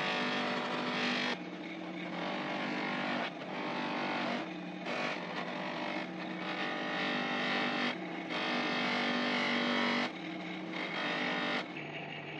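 An electric bench grinder motor hums steadily while the cleaver's wooden handle and steel blade are pressed against its spinning buffing wheel, adding a hissing rub. The rub comes and goes in several short stretches.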